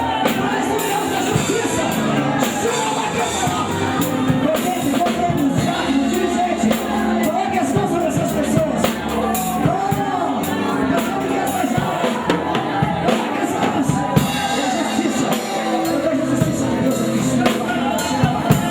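A live gospel band playing: drum kit, electric guitar, bass and keyboard, steady and full throughout, with voices over it.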